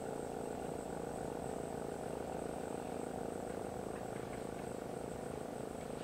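Crickets and other insects chirping steadily, with an evenly pulsing trill and a thin high whine, over a low steady hum.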